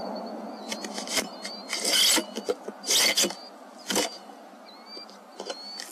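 Handling noise close to the microphone: a run of sharp clicks and short scraping rasps, the loudest about two and three seconds in, with faint thin high chirps in the background.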